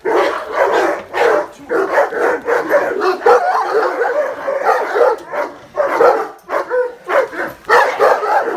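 Several dogs barking hard and without a break, many barks a second overlapping: alarm barking at a masked stranger at the house door.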